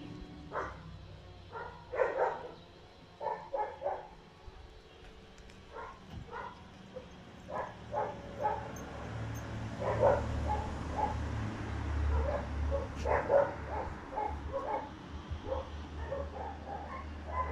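Dogs barking: short, separate barks and yips scattered through, coming more often in the second half. A low steady rumble sets in about halfway.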